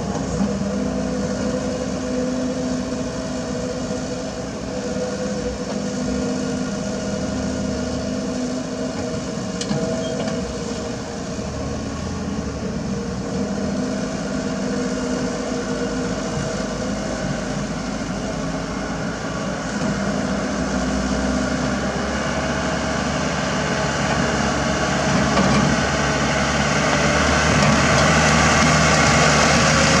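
Diesel engines running: a Kobelco SK75 excavator at work and a dump truck, the sound growing louder over the last ten seconds as the truck comes up close.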